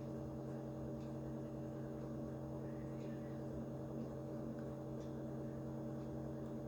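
Steady low electrical hum with faint ticks about every two seconds; no sneeze is heard.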